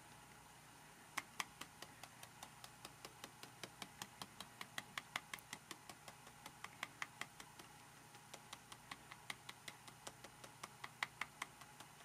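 Sharpie permanent marker drawing on a playing card: a long run of faint, quick ticks, about three a second, as the tip taps and strokes the card, with a short lull a little past the middle.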